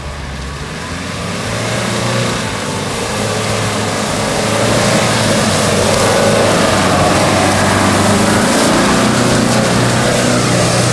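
Nissan Terrano II SUV's engine running under load as it climbs a steep, muddy off-road track, getting louder over the first few seconds as the vehicle comes close.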